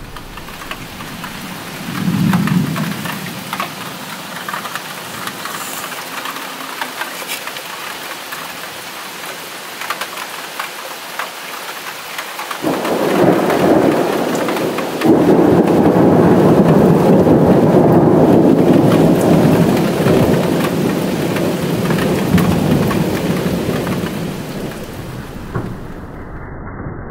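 Thunderstorm: steady rain falling throughout, with a short low rumble of thunder about two seconds in, then a long, louder roll of thunder that builds about halfway through, stays loud for several seconds and slowly fades.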